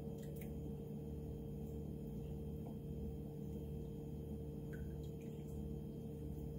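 A steady low hum, with a few faint light clinks of a spoon against a stainless steel travel mug.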